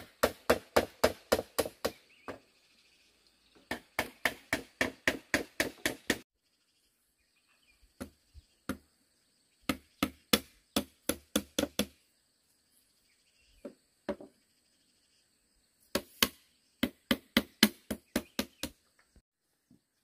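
Rapid strikes on bamboo, about five a second, in four runs of eight to ten blows with a few single blows between.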